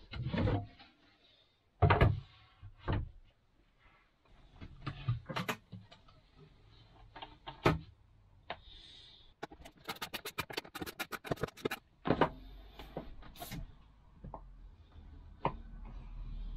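Hands-on work on a plywood seat box and its frame: scattered knocks and thumps of wood and hand tools being handled, the loudest about two seconds in. Between about ten and twelve seconds there is a quick, even run of about a dozen clicks.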